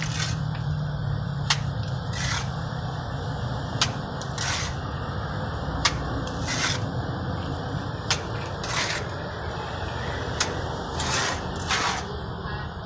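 Steel trowel scraping wet cement render off a hawk and across a block wall, in short strokes that come roughly every two seconds, each paired with a sharp click of metal.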